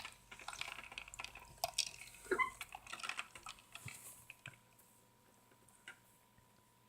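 Close, quiet mouth sounds of drinking chocolate milk through a straw: quick wet clicks, sips and swallows, thinning out after about four and a half seconds.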